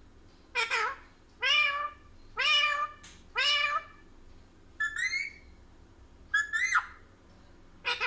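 Rose-ringed parakeet giving a series of loud, harsh calls: four drawn-out ones about a second apart, then two shorter, broken ones.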